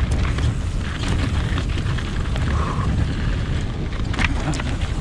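Mountain bike descending a rocky gravel trail, recorded on a chest-mounted GoPro: a steady heavy rumble of wind and rolling tyres, with crunching over loose stones and rattles from the bike.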